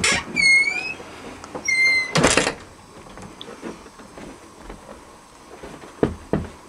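A house door opened with two short high squeaks from its hinges, then pushed shut with a thud about two seconds in. A couple of light knocks follow near the end.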